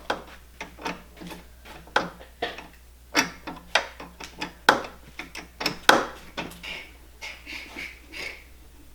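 Irregular clicks and knocks of metal parts and hand tools, a few a second, as the carburetor is fitted back onto a kids' snowmobile engine and its nuts and studs are put on.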